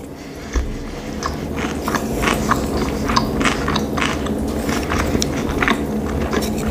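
Close-miked chewing of a mouthful of sushi roll: a steady run of small, quick mouth clicks as the rice and filling are chewed.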